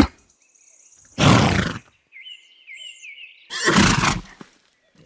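Horse snorting twice, two loud, unpitched blows about a second in and near four seconds, with small birds chirping between them.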